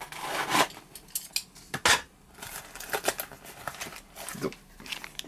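Scissors cutting open a paper mailer, heard as irregular sharp snips and scratchy rustles of the paper, the loudest snip a little before two seconds in.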